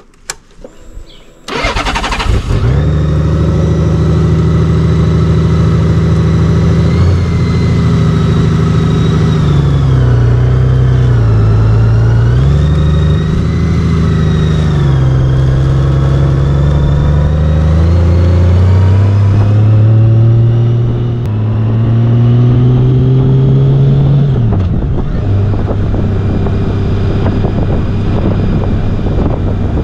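2014 Honda Valkyrie's 1832cc flat-six engine comes in about a second and a half in and runs under way. Its pitch rises and falls with throttle and gear changes, drops sharply near the end, then holds steady.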